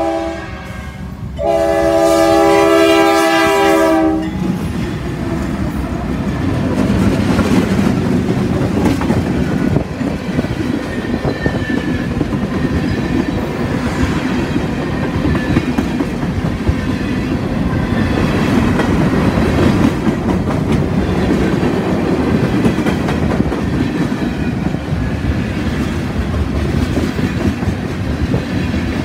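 CSX freight locomotive's air horn sounds a short blast and then a long one of about three seconds, a chord of several notes. Then come the steady rumble and clickety-clack of loaded tank cars rolling past close by.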